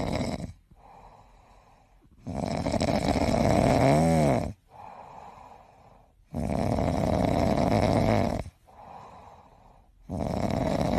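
Sleeping cat snoring: long noisy snores about every four seconds, each lasting about two seconds, with quieter breaths between. The snore about four seconds in carries a brief wavering whistle.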